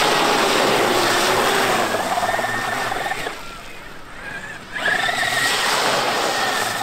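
Traxxas X-Maxx brushless electric RC monster truck blasting through puddles, its motor whine mixed with the rush and splash of sprayed water. There are two passes, one at the start and another from about five seconds in, with a short lull between them.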